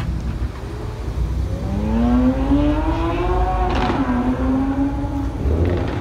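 Lamborghini engine accelerating hard, its note climbing steadily, then dropping sharply at an upshift about four seconds in before pulling on again.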